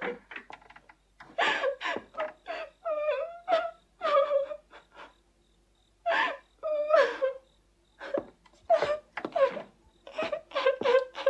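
A young girl sobbing and wailing in broken, catching cries with short pauses between: weeping in grief.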